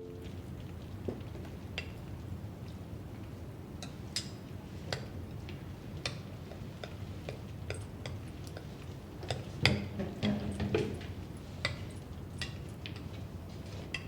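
Steady low room noise with scattered light clicks and knocks, like small objects being handled, a cluster of louder knocks about two-thirds of the way through, and a sharp thump at the end.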